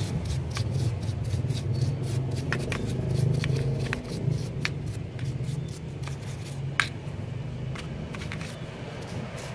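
Paintbrush bristles scrubbing the outside of a Suzuki Satria F vacuum carburetor body: a run of irregular scratchy strokes and small clicks as the brush works over the metal, over a steady low hum.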